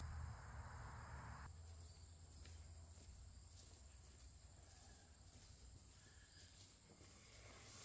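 Near silence, with only a faint steady high-pitched tone.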